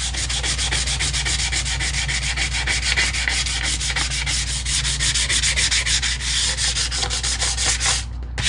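220-grit sandpaper rubbed by hand in fast back-and-forth strokes, several a second, on a cast aluminium pull-starter housing to brighten its dull surface; the sanding stops near the end. A steady low hum runs underneath.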